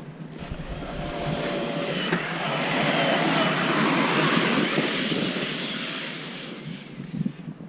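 Electric RC monster truck driving through snow: a high, steady brushless-motor whine over the rush of tyres churning snow, growing louder for a few seconds and then fading away.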